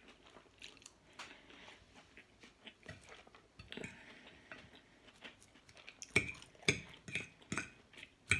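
Close-up eating sounds: chewing and mouth noises, with a metal fork clinking and scraping on a plate. Sharper clicks come about twice a second in the last couple of seconds.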